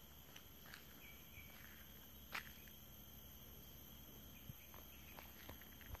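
Near silence: a faint steady hum with a few scattered light clicks, the sharpest about two seconds in.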